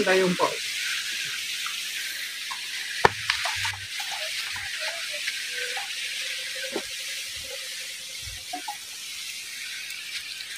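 A steady, high-pitched hiss with a few scattered light clicks and knocks, the sharpest about three seconds in.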